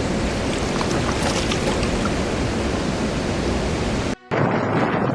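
Loud, steady rush of flowing water, most likely floodwater. It cuts out briefly a little after four seconds in, then starts again.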